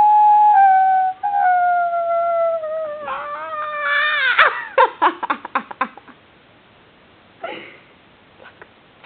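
Miniature Pinscher puppy howling: one long howl that slides slowly down in pitch, wavers up and down about four seconds in, then trails off in a quick run of short yelps. A brief whimper follows near the end.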